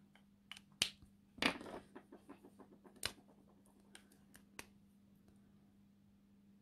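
Plastic Copic marker bodies clicking and knocking as markers are picked up and handled: a scatter of light clicks and a short rustle, dying away about five seconds in.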